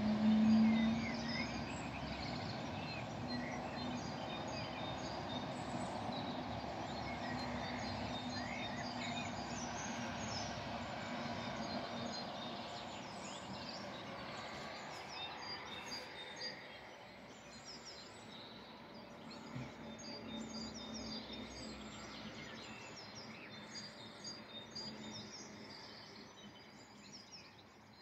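Several small birds chirping and singing in short repeated phrases, over a steady low hum that is loudest at the start and fades away about halfway through.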